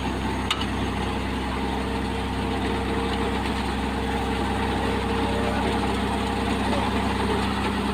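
Heavy diesel engines of road construction vehicles running steadily at idle, with a brief click about half a second in.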